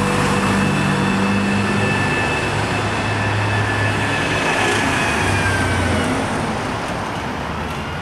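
City transit bus pulling away up the street, its engine drone and a high steady whine carrying under general car traffic, with cars passing close by; the sound slowly gets quieter over the last couple of seconds.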